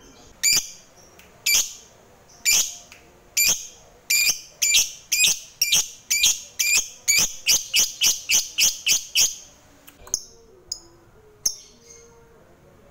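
Lovebird ngekek: a run of shrill chirps, first about one a second, then quickening to three or four a second before breaking off about nine seconds in. A few softer calls follow.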